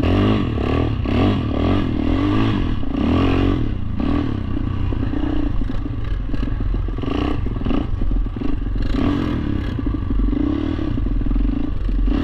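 Quad (ATV) engine revving up and down repeatedly as it is ridden over rough ground, with scattered knocks and rattles from the machine.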